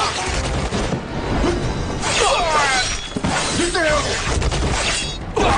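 Staged battle explosion: a low boom with scattering debris, and men yelling and crying out several times over dramatic background music.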